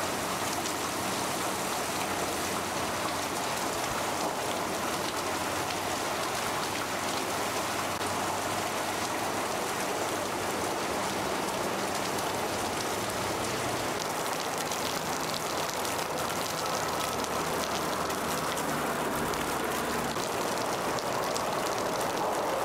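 Hurricane-force wind driving heavy rain, a steady loud hiss of rain and spray with no letup.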